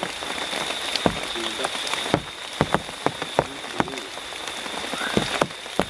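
Heavy rain falling steadily, with big drops landing close by in irregular loud taps.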